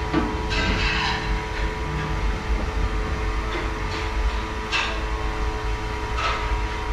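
A heavy cloth cover swishes and rustles in a few short strokes as it is spread and smoothed over a giant pot's lid. Underneath runs a steady low machine rumble with a hum.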